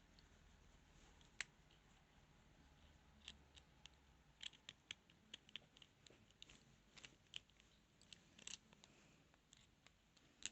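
Faint, irregular metallic clicks and ticks of a lock pick working inside a padlock, a few at a time with most of them in the middle of the stretch.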